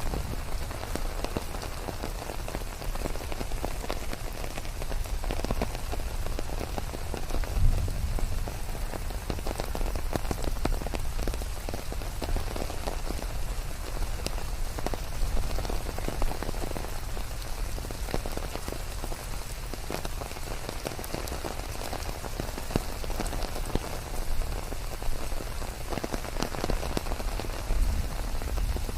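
Steady forest rain, many individual drops ticking over a continuous hiss, mixed with white noise. A brief, louder low thump comes about eight seconds in.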